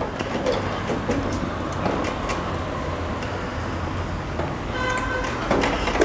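Faint scattered clicks and scraping of thin binding wire against the metal of a split air conditioner's service valve, as the wire is hooked under the collar of the valve's Allen-head stem, over a steady low hum.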